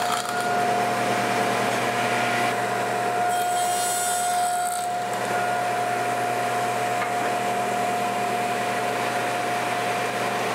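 Table saw with a 1/4-inch dado blade running steadily with a constant whine, cutting a test notch in a wooden muntin bar. The cut shows as a hiss right at the start and again for about a second and a half around four seconds in, while the blade keeps running.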